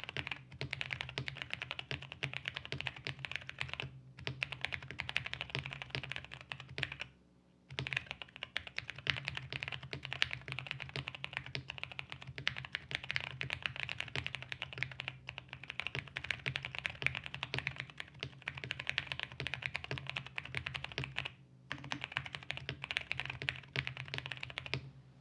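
Fast, continuous typing on a mechanical keyboard with Durock Koala tactile switches, stock and unlubricated with 62 g springs: a dense run of keystrokes with a few short pauses, stopping near the end. A steady low hum lies underneath.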